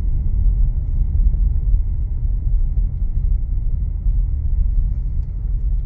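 Steady low rumble of a car being driven slowly, road and engine noise heard from inside the car.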